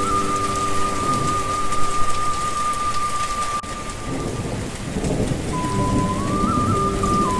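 Steady heavy rain falling, with a rumble of thunder about two seconds in.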